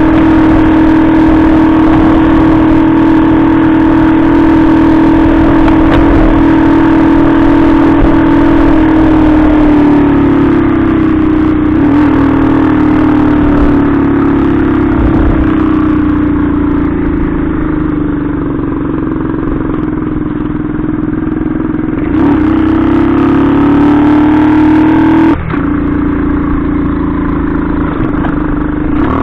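Benzer Yankee 50cc moped's single-cylinder four-stroke 139FMB engine running under way along the road. The engine note sags for a while midway and climbs again, with a brief cut in the sound near the end.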